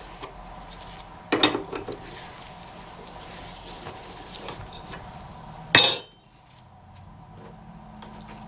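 Metal tools and axle parts clanking: a short run of knocks about a second and a half in, then one loud metallic clank that rings briefly, near six seconds in.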